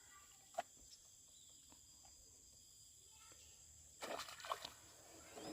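Faint, steady high-pitched chirring of insects, with a single sharp click about half a second in and a short, noisy rustle or splash about four seconds in.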